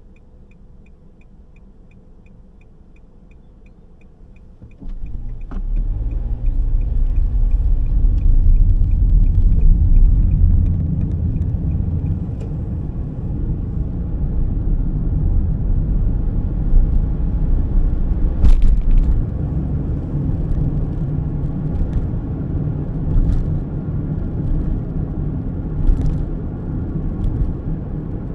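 Low, steady rumble of a car on the move, heard from inside the cabin: road and engine noise that sets in about five seconds in, after a quieter stretch with faint rapid ticking. A couple of sharp knocks come midway and near the end.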